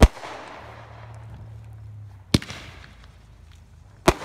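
Aerial fireworks going off: three sharp bangs about two seconds apart, each trailing off in a fading hiss.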